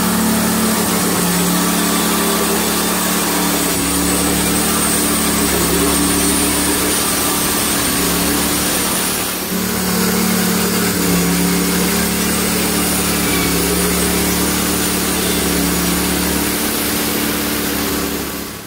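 Hud-son Homesteader HFE30 portable band sawmill running steadily, its engine and band blade at work, with a brief dip in level about halfway through.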